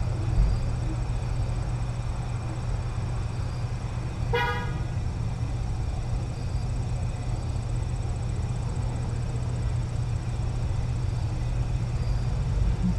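A steady low hum, with one short, flat horn-like toot about four seconds in.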